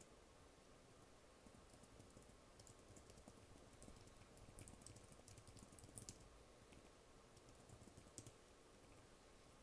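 Soft typing on a computer keyboard: quick runs of light key taps that start about a second and a half in and thin out after about six seconds into a few single clicks.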